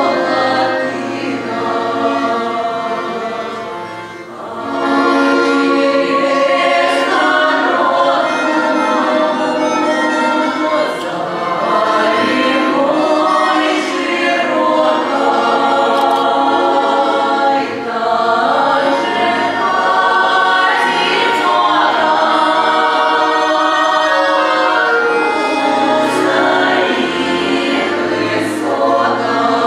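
Women's vocal ensemble singing a Russian song in harmony, the voices easing off briefly about four seconds in before coming back at full strength.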